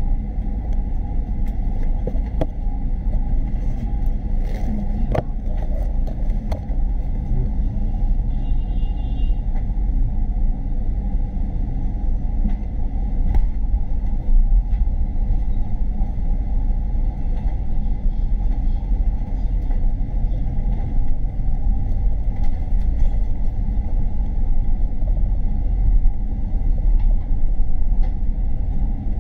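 City bus driving, heard from inside the cabin: a steady low rumble of engine and road noise as it crosses an intersection.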